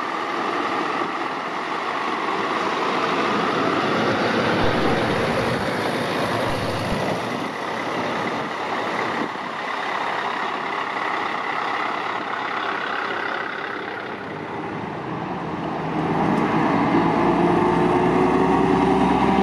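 Heavy trucks, Scania tractor units among them, driving past one after another, their diesel engines running steadily over tyre and road noise. About three-quarters of the way through, the sound changes to another truck approaching with a louder, steady engine drone.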